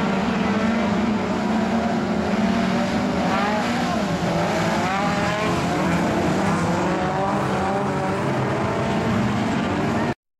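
Several production-sedan speedway cars' engines running together as the pack laps the track, their pitch rising and falling as they accelerate and lift. The sound cuts off suddenly near the end.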